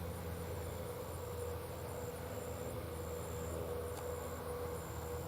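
Steady low drone of engines running, with insects trilling high and shrill in short repeated pulses over it.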